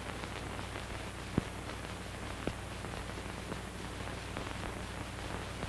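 Steady hiss and low hum of an old optical film soundtrack, with a few isolated crackles.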